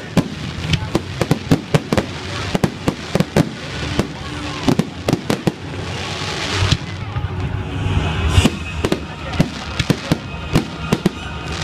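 Fireworks display: a rapid, uneven barrage of shell bursts and bangs. A hissing rush builds in the middle and stops abruptly about seven seconds in.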